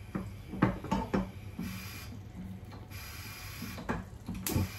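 Wooden spatula stirring and scraping sauce-coated sweet corn kernels around a nonstick frying pan, with several sharp knocks of the spatula against the pan.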